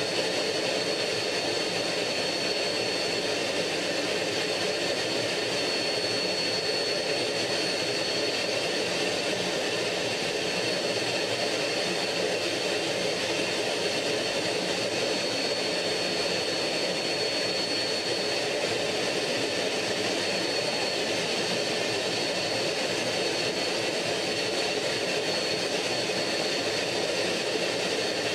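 MiG-15 jet fighter's engine running steadily in cruise flight, heard inside the cockpit as an even rushing roar with a thin, steady high whine over it.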